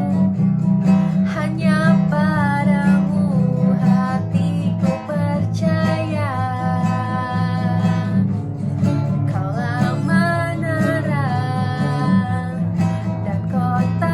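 Worship song: acoustic guitar strumming with a singing voice.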